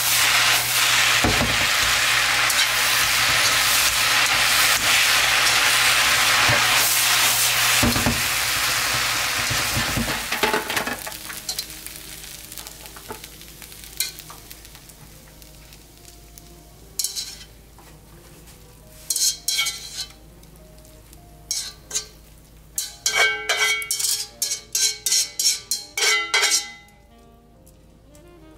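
Chow mein noodles sizzling loudly in a hot wok as they are tossed and stirred with tongs, with a few dull knocks of the wok. After about ten seconds the sizzle dies away, and metal tongs and chopsticks click and clatter against the wok and an aluminium foil takeout tray as the noodles are served out, in quick runs of clatter near the end.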